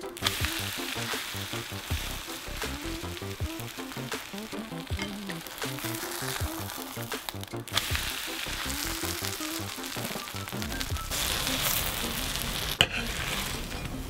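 Oyster and vegetable pancake batter sizzling as it fries in a stainless steel frying pan, with a brief break about halfway and one sharp click near the end. Background music plays underneath.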